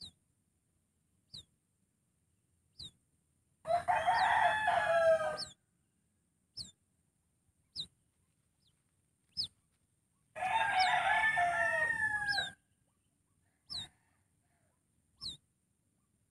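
Rooster crowing twice, each crow about two seconds long, about four and ten seconds in. Between the crows, a short high falling chirp repeats about every one and a half seconds.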